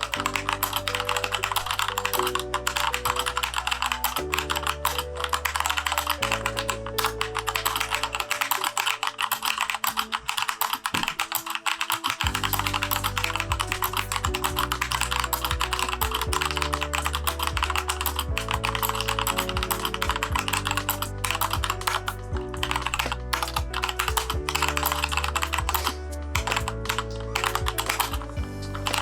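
Fast, continuous typing on a Keychron K2 mechanical keyboard fitted with unlubed Gateron switches: a dense stream of key clicks. Background music plays underneath, and its bass drops out for a few seconds about a third of the way in.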